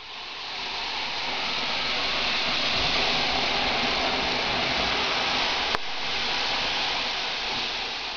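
A steady rushing hiss that swells up over the first second and then holds level, with a single sharp click about six seconds in.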